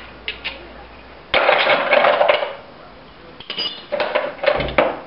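Metal hand tools clinking and scraping against small metal parts: a couple of light clicks, a loud rasping scrape lasting about a second, then a run of sharp metallic clinks near the end.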